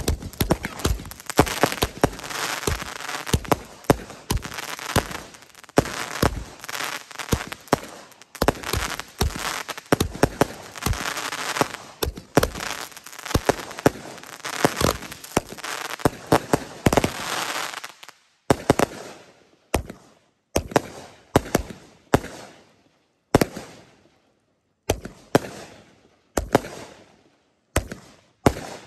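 Consumer fireworks going off on the ground: dense crackling and popping for about eighteen seconds, then separate sharp bangs roughly once a second.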